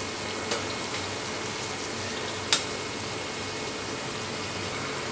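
Samosas deep-frying in medium-hot oil in a kadhai: a steady sizzle of bubbling oil. Two short clicks, about half a second and two and a half seconds in, come from the metal slotted spoon touching the pan.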